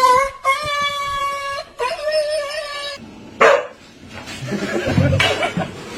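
A dog howling and whining in two long, steady-pitched calls over the first half, followed by shorter, noisier sounds.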